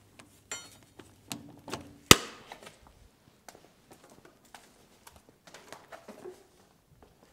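One sharp, ringing metal clank about two seconds in, among smaller clinks and knocks of steel tools being handled at a workbench.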